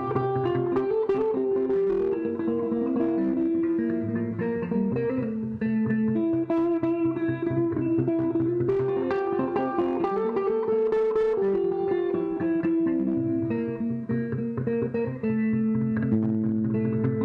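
Improvised solo guitar music: layered held notes that step between pitches over a sustained low bass line.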